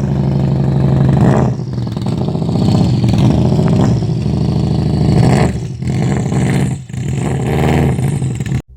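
A car engine running and revving, its pitch rising and falling, with brief dips about one and a half, six and seven seconds in.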